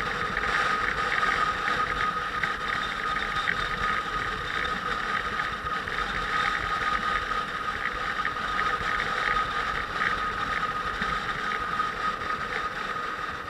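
Motorcycle running steadily under way, a constant mechanical running noise with a steady high whine over it.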